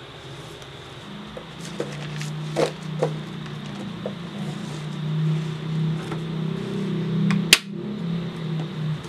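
Clear plastic trading-card sleeves and a binder being handled on a desk, a few soft clicks and rustles, then one sharp click about seven and a half seconds in as the binder's metal D-rings snap open. A steady low hum runs underneath.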